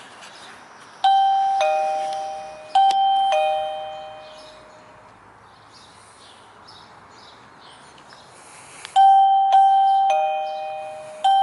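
Alierkin wireless doorbell chime unit playing its two-tone ding-dong, a higher note then a lower one, each ringing out and fading. It rings twice in quick succession about a second in, then again from about nine seconds in. Each chime is the receiver picking up a press of the distant wireless push-button.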